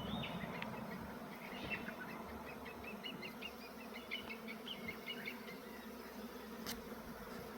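A swarm of honeybees humming steadily as they fly around. Small birds chirp in quick short notes for a few seconds starting about a second and a half in, and a single sharp click comes near the end.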